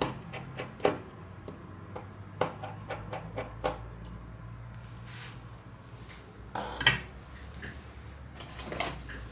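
Small sharp clicks and taps of repair tools against a Huawei P8's parts, coming irregularly and in clusters, with a longer, louder scraping click about six and a half seconds in.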